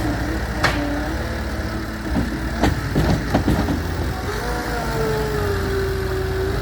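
Gehl V420 skid steer loader's diesel engine running steadily, with a whine that bends up and down in pitch and a few sharp knocks, the loudest about two and a half seconds in.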